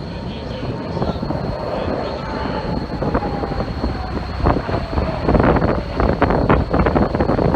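An aircraft flying past: a steady engine rumble with a faint tone that slowly falls in pitch, getting louder toward the end, with wind buffeting the microphone.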